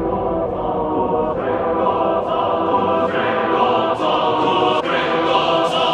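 Electronic background music with sustained choir-like chords and a beat a little under a second apart, growing brighter over the first couple of seconds.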